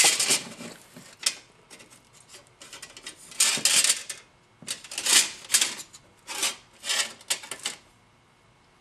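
Flat pieces of sheet metal being handled and set down on a workbench: an irregular run of clinks, clatters and scrapes, loudest at the start and again a few seconds in.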